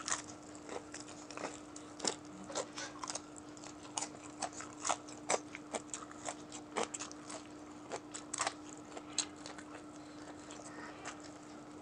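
Close-up sounds of a man biting, crunching and gnawing on crispy fried chicken neck held in his fingers: irregular crisp crackles and wet mouth smacks, several a second at the busiest. A faint steady hum runs underneath.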